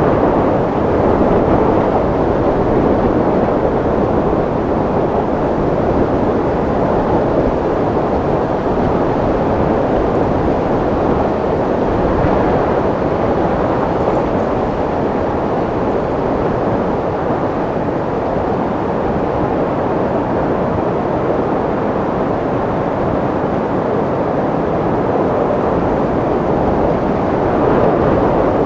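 Wind blowing steadily: a dense, low rushing with no whistle, swelling gently a couple of times.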